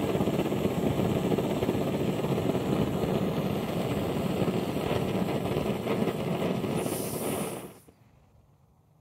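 Pressurised brass kerosene blowtorch, a Companion No. 42 one-pint, burning with a steady, loud rushing noise. Near the end comes a short high hiss as the pressure release valve is opened, and the burner cuts out suddenly.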